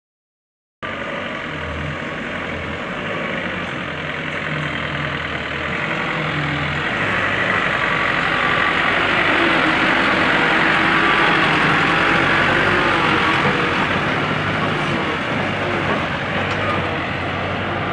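Engine of a small flatbed truck running as it carries a steel water-tower frame, starting abruptly about a second in as a steady noisy rush that grows somewhat louder towards the middle.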